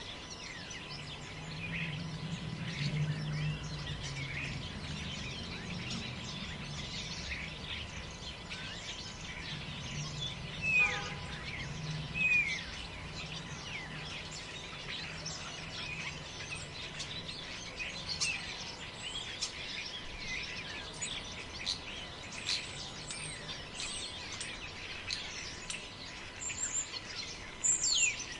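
Forest ambience of many birds chirping continuously. Two louder calls glide downward in pitch about 11 and 12 seconds in, and a high call sweeps down near the end. A low rumble sits underneath for the first two-thirds.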